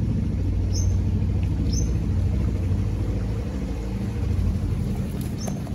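Boat's outboard motor running steadily at low speed, a continuous low rumble.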